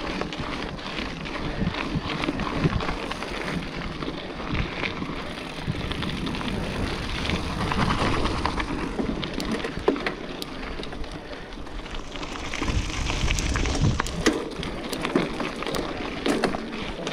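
Mountain bike riding fast down a dirt forest trail: tyres rolling and skidding over dirt and roots, with the bike's frame and chain rattling and knocking over the bumps.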